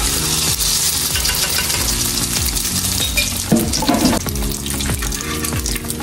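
Malanga fritters sizzling steadily as they fry in hot oil.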